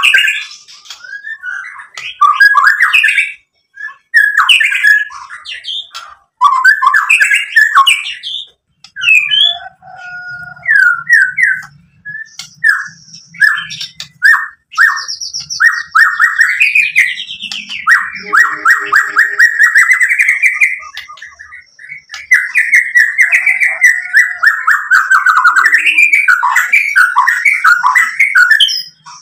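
White-rumped shama (murai batu) singing a long, varied song of loud whistled phrases. Partway through, it gives a run of quick repeated notes and then a fast, dense rattling trill.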